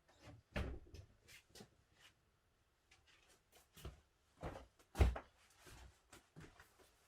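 Irregular light knocks and clicks of handling work, a dozen or so short sounds at uneven intervals, the loudest a knock about five seconds in.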